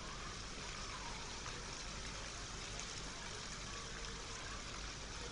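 Heavy rain falling steadily: a faint, even hiss of a downpour.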